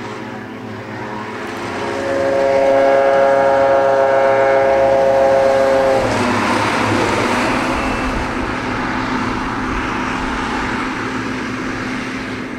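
Silage-harvest farm machinery passing close by. A loud steady whine with several pitches builds up, drops in pitch as the machine goes past about six seconds in, then gives way to a rushing engine and running-gear noise.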